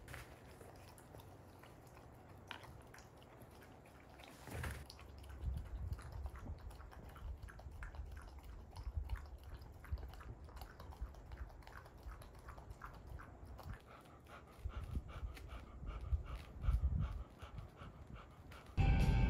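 Golden retriever eating soupy food from a bowl, lapping and mouthing it in a quick run of small wet clicks, with soft thumps of handling. Music comes in loudly just before the end.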